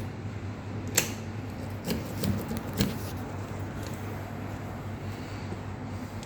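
Sharp metallic clicks and small knocks from hand work on a Toyota ignition lock cylinder: one click about a second in, then a short run of clicks and knocks a second later, over a steady low hum.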